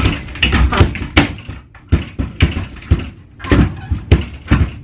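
Irregular wooden knocks and clatter, a dozen or so, as a wooden crib is pried and worked apart by hand.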